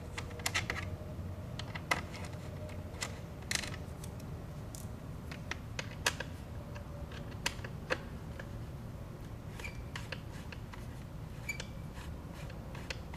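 Light, irregular clicks and ticks of a hex key working the small bolts out of a motorcycle's plastic side body panel.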